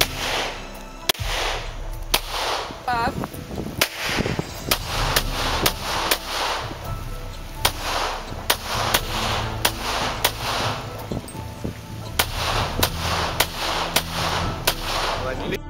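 Pistol shots fired in rapid strings, about two to three a second, each trailing off in a short echo.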